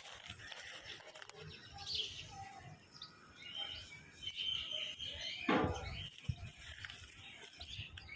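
Birds chirping in short, scattered calls over a light outdoor background, with a louder single sound about five and a half seconds in.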